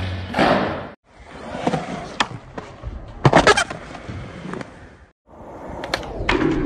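Skateboards rolling on concrete, with the sharp snaps of tail pops and clacks of boards landing, several times. The sound cuts out abruptly twice, about a second in and near five seconds in.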